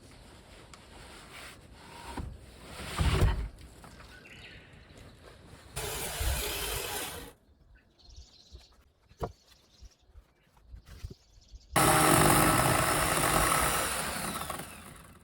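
Chainsaw running in two loud bursts, a short one then a longer one whose pitch falls away as the engine slows near the end. A heavy thud comes about three seconds in.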